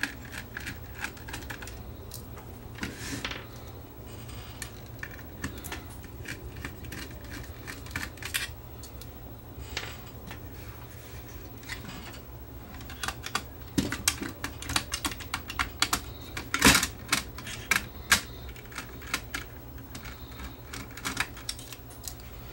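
Screwdriver backing out small screws from a CD player's metal chassis, with irregular light clicks and taps of the tool and parts being handled. The clicking thickens into a louder clatter about two-thirds of the way through.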